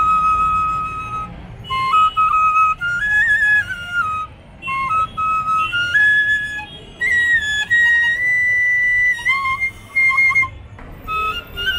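Bamboo bansuri, a side-blown flute, played solo: a melody of held notes stepping up and down, in short phrases with brief pauses between them.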